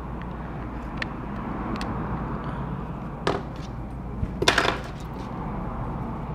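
A few light clicks and taps of small hand tools working on the opened iPod touch, the loudest cluster about four and a half seconds in, over a steady low background hum.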